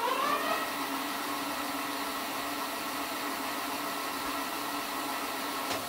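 Rear hub motor of an EKX X20 electric bike spinning the raised rear wheel with no load at top speed level. Its electric whine rises in pitch over the first half second as the wheel spins up, then holds steady, with one short click near the end.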